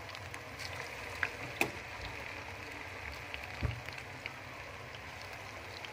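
Cabbage pakoras deep-frying in hot oil in a steel pan: steady sizzling and bubbling with fine crackles, and a few louder clicks about a second in, just after, and past the middle.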